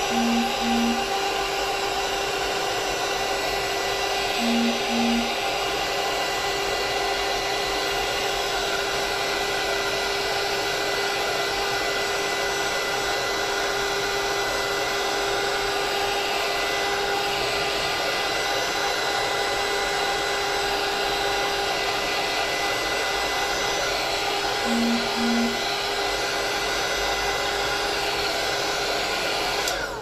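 Handheld craft heat tool (embossing heat gun) running steadily with a fan whine while blowing hot air to dry texture paste, then switched off abruptly at the end. A short double beep sounds three times over it.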